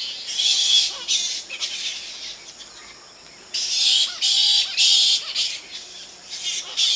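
A roosting colony of flying foxes (large fruit bats) screeching and squabbling in harsh, high-pitched bursts. The calls come in three bouts: about half a second in, around the middle, and near the end.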